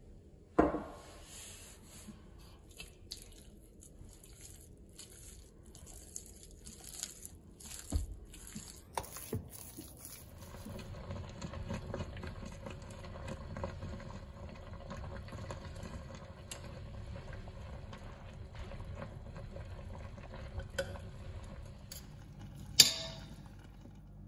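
A spoon working minced pork in a stainless steel bowl, with short scraping, squelching strokes and a few clinks against the steel. Then a pot of broth simmering steadily as meatballs are spooned in, with one sharp clink near the end.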